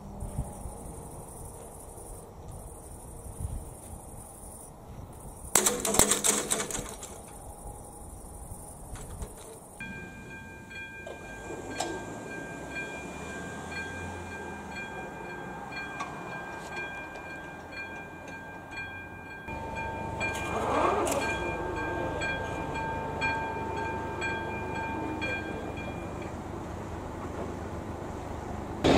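Electronic level-crossing warning bell ringing in a steady repeating pattern while the red light flashes and the barriers come down; it starts about a third of the way in and cuts off a few seconds before the end. Before it there is outdoor background noise with a loud short sound about six seconds in.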